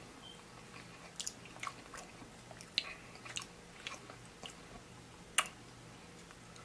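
Close-miked chewing of loaded fries: soft, wet mouth clicks and smacks at irregular intervals, with one sharper click a little past five seconds in.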